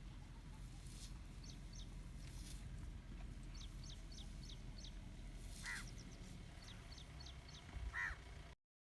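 Wild birds calling: a series of short, quick high chirps and two louder falling calls, over a low steady rumble. The sound cuts off abruptly near the end.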